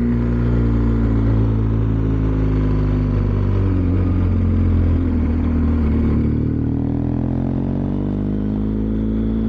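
BMW R1250GS Adventure's boxer-twin engine running under way, its note dropping off about halfway through as the throttle eases, then climbing again toward the end as it pulls back up.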